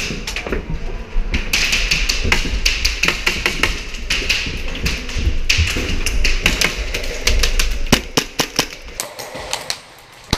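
Quick footsteps and taps of gear on a hard tiled floor, over a steady rustle of movement. The sound quiets about eight seconds in.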